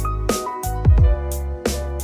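Instrumental background music with a steady beat: a deep kick drum about every 0.7 s, with snare and cymbal hits over sustained notes.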